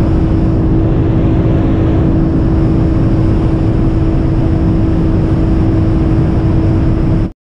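Acura TL SH-AWD's 3.7-litre V6, fitted with a J-pipe and Borla mufflers, running at a constant pitch under loud, steady wind and road noise at speed. It cuts off suddenly near the end.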